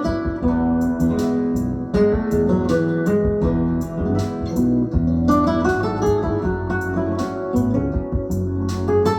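Music with plucked guitar over a heavy bass line and steady percussive hits, played through an audio system under test.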